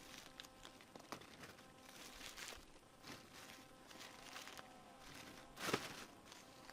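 Faint rustling and light footsteps, with one louder brushing sound near the end.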